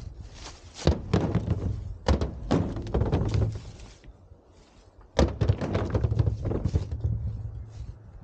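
Footsteps crunching through dry fallen leaves, with a few heavy thunks from the pickup truck's bed and tailgate, about one, two and five seconds in.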